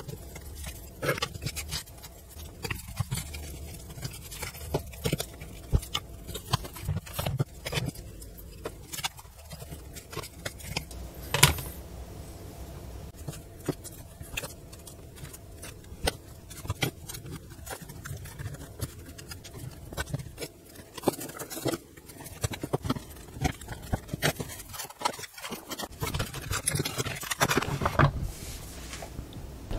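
Birch plywood strips and panels being handled, laid down and pressed together on a cutting mat: scattered light taps, clicks and scrapes of wood, with one sharper knock about eleven seconds in.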